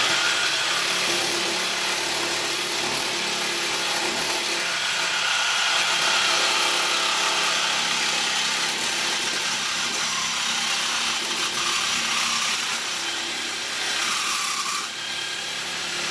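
Corded reciprocating saw with a new DeWalt blade cutting through the metal pipe of a long-tube exhaust header, sawing steadily and passing through easily. The sawing drops off briefly near the end and then picks up again.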